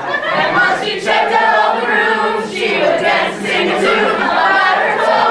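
A group of voices singing together, choir-style.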